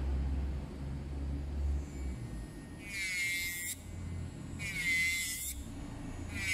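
Electric nail drill with a white sanding bit grinding acrylic nails: a high buzzing whine in three short bursts as the bit bears on the nail, over a low steady hum.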